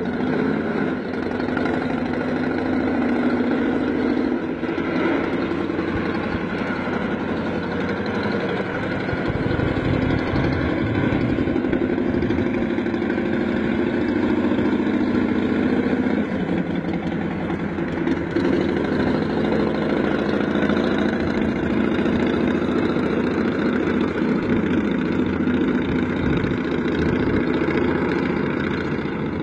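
Big-block engine of a huge custom motorcycle running steadily, with only small shifts in its note.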